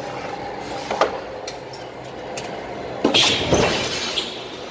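Cincinnati mechanical squaring shear making a cut through steel sheet: a sharp knock about a second in, then about three seconds in a loud clank with a short low rumble as the blade comes down and shears the sheet.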